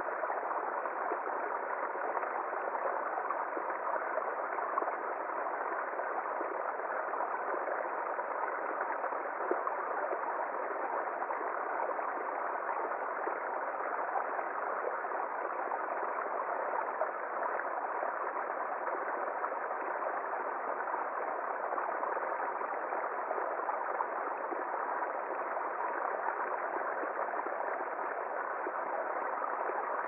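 Small brook of water spilling over a log into a shallow pool, running and splashing steadily without change.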